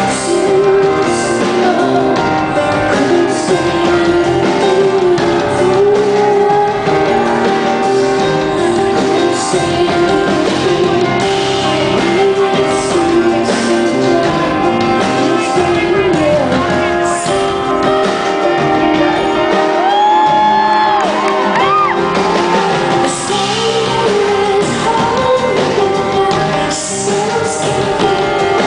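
A live concert performance of a rock song: a woman singing over continuous band music, heard in a large hall.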